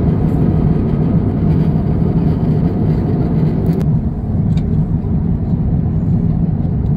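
Airliner cabin noise: a loud, steady low rumble of jet engines and rushing air heard from inside the passenger cabin.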